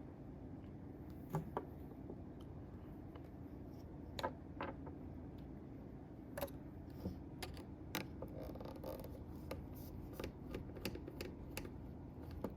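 Scattered small metallic clicks and taps of a Torx screwdriver and tiny screws while a SOG Terminus XR folding knife is being unscrewed and taken apart, over a low steady background hum.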